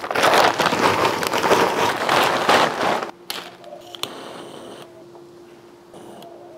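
Charcoal poured out of a bag in a dense clattering rattle that lasts about three seconds. It is followed by a few clicks and a short hiss from a lighter as a fire starter is lit.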